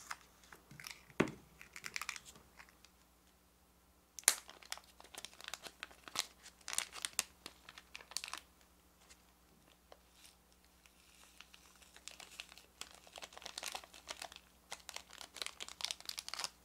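Thin clear plastic packet crinkling and crackling as it is handled, torn open and squeezed to pour out kinako powder, in three stretches with pauses between. A single sharp knock about a second in.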